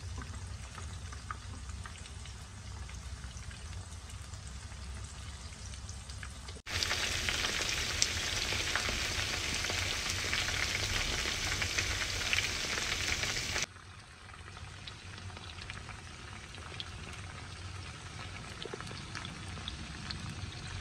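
Battered chicken wings deep-frying in hot oil in a pan: a steady sizzle dotted with small crackling pops. The frying is louder and brighter for about seven seconds in the middle, then drops back to the quieter sizzle.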